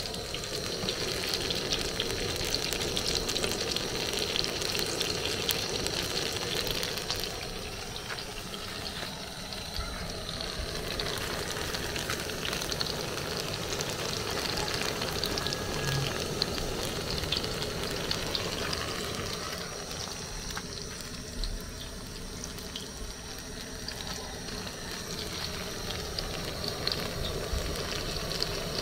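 Plantain puff puff dough balls deep-frying in hot oil in an aluminium pan: a steady sizzle with fine crackling.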